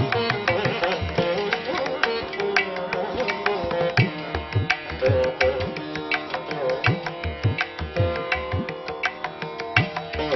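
Instrumental music: a held melody over frequent, quick drum strokes.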